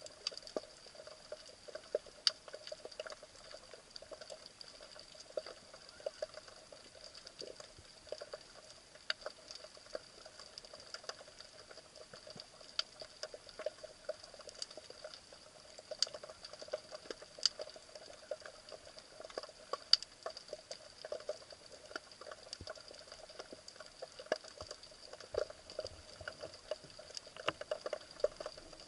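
Underwater ambience picked up by a camera in a waterproof housing: irregular sharp clicks and crackles, several a second, over a faint steady hum.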